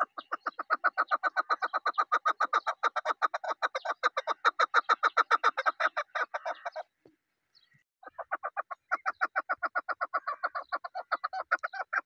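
Chukar partridge calling: a fast, even run of short 'chuk' notes, about seven a second, for some seven seconds, then after a brief pause a second run of the same.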